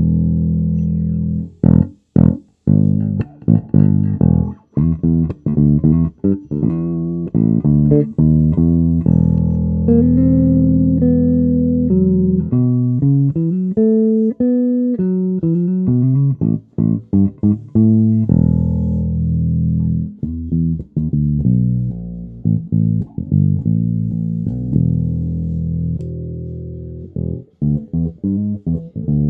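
FGN KNJB100MBAH Jazz Bass-style electric bass, with an ash body, a maple neck and FGN 62J pickups, played solo. It plays a line of low plucked notes with short muted gaps, moves up into a higher passage of rising and falling notes for several seconds in the middle, then goes back to low rhythmic notes.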